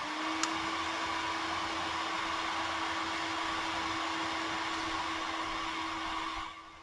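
EGO 56V rapid charger's cooling fan, just up to speed after being powered on, running with a steady whir and a held hum, with a single click about half a second in. Near the end the fan drops to a lower, quieter speed and keeps running.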